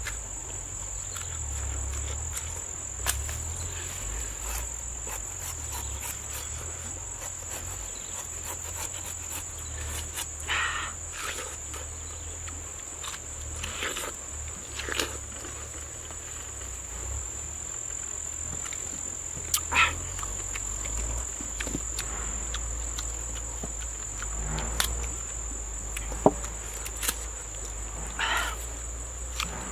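Steady high-pitched insect chorus throughout, with scattered crunches and clicks from a machete cutting and peeling green banana and from biting into fresh pineapple.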